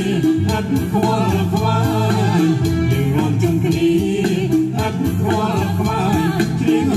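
A song with a singing voice over a steady bass line, played through a UE Megaboom 3 portable Bluetooth speaker.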